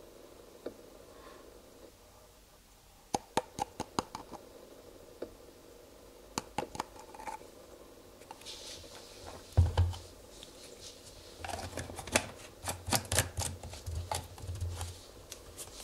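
Hard plastic screw cap and bottle of a one-litre motor oil bottle being handled and the cap screwed back on: scattered small plastic clicks, a rubbing hiss with one dull thump about ten seconds in, then a dense run of clicks and scraping near the end as the cap is twisted shut.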